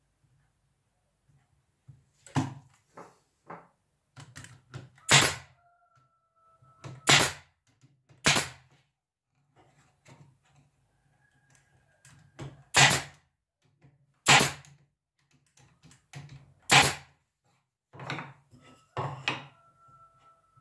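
Sharp knocks on wood, about eight of them at irregular gaps of one to two and a half seconds, a few followed by a short ringing tone.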